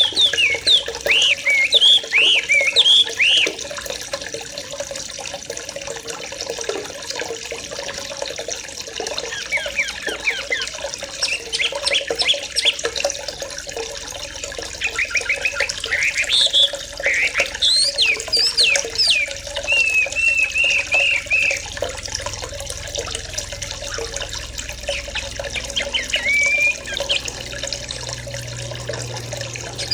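A flock of yellow-vented bulbuls (trucukan) chattering in clusters of quick chirps and short calls, with a brief level trill about two-thirds of the way in, over a steady rush of running water.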